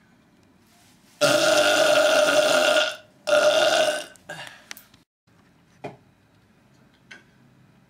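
A man belching: one long belch lasting nearly two seconds, then a shorter second belch right after it.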